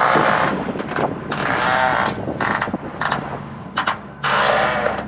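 Sailboat's inboard engine running steadily while the boat motors along, with loud irregular rushing noise over it.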